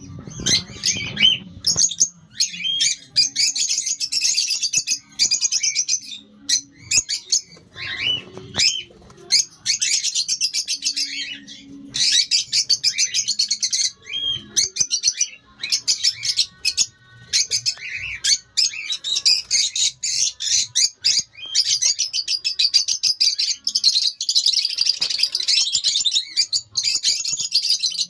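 A flock of caged peach-faced lovebirds chattering: dense, rapid high chirps almost without a break, with a few brief lulls.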